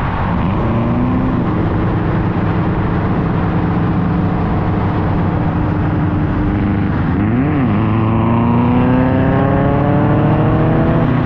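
Subaru flat-four engine and road noise from a car driving on the road. About seven seconds in, the engine note briefly rises and drops, then climbs steadily as the car accelerates.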